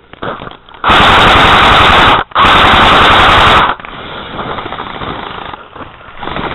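Airsoft gun firing full-auto in two long bursts of about a second and a half each, split by a brief pause, very loud and distorted close to the microphone.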